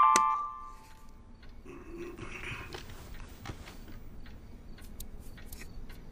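Music-box chime notes ringing out and fading in the first half second. Then faint scattered clicks and a brief soft rustle.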